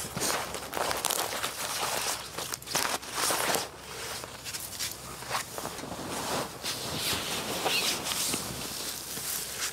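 Footsteps crunching through snow at an irregular pace, with the rustle of dry branches being carried and handled.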